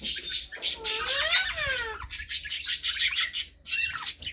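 Pet parrots in a cage chattering with rapid, harsh squawks and chirps, with a longer call that rises and then falls in pitch about a second in.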